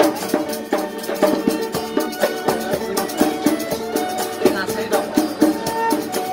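Street musicians playing live music: regular percussive strikes under a held, wavering melody line.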